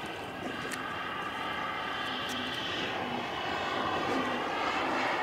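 Turbine of a Sebart Avanti S RC model jet whining steadily in flight, growing louder as the jet comes closer.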